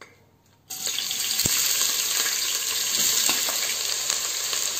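Chopped red onions sizzling in hot cooking oil in a stainless steel pot: the frying starts suddenly about a second in and then runs on steadily, with a light knock shortly after it starts.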